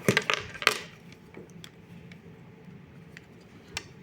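A quick run of sharp clicks and rattles in the first second, then a few light, scattered ticks.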